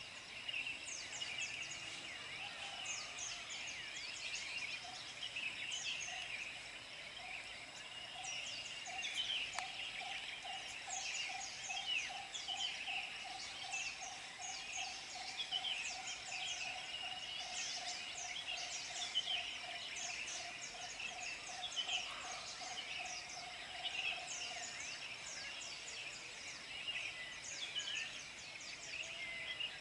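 Birds chirping and calling, many short overlapping notes throughout, with a steady, fast pulsing low trill running through the middle for about twenty seconds.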